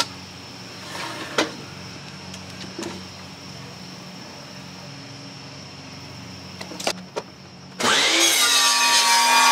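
DeWalt compound miter saw starting up and cutting through a length of 2x4 lumber for about two seconds near the end, a loud noisy cut over a motor whine that rises in pitch and then settles. Before it, a low steady hum with a few light clicks as the board is measured and positioned.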